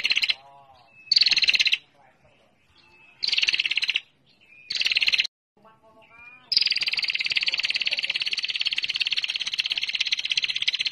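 Female prinia (prenjak) giving its rapid, buzzy trill. Three short trills come about a second and a half apart, then one long unbroken trill runs from about six and a half seconds in, with faint soft notes between the trills.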